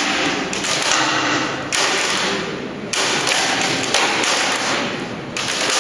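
Timber load-bearing walls straining in a racking-test rig: a series of sudden cracks and knocks from the wood and its joints, each one trailing off over about a second.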